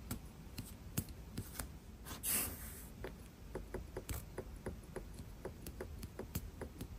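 Haptic trackpad of an Apple Magic Keyboard for iPad Pro being pressed repeatedly. At first it is unpowered and gives only a few faint fingertip taps; then, with power, it answers each press with a crisp click, about three a second. A brief rustling swish comes just past two seconds in.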